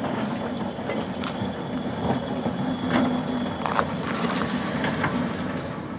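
Seaton Tramway's number 11, a small open-top double-deck electric tram, rolling past: a steady low hum from the running tram, with repeated clicks and knocks as its wheels cross rail joints and points.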